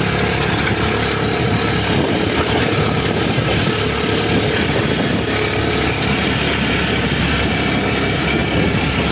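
Motorcycle engine running steadily while riding at road speed, mixed with heavy wind and road noise.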